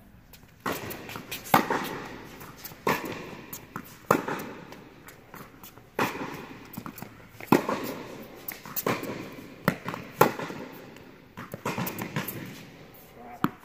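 Tennis rally: racquets striking the ball back and forth, a sharp hit about every one and a half seconds, each one echoing in the indoor court hall.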